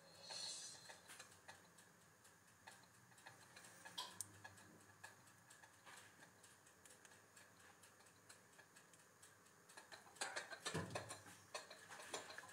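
Near silence: room tone with faint, scattered clicks. About ten seconds in comes a short, louder stretch of handling noise.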